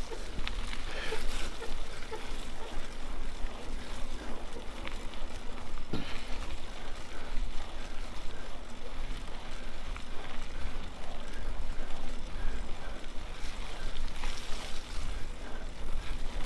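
Mountain bike riding along a trail, heard as a steady wind-and-riding rumble on the camera microphone with a jittery level, and a few sharp clacks from the bike, the clearest about six seconds in.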